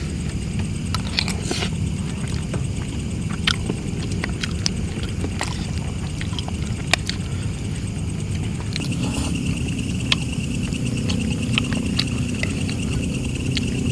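A metal spoon clicking and scraping against a ceramic plate, a handful of sharp separate clicks, over a steady low rumble. About two-thirds of the way through, a steady high pulsing trill joins in.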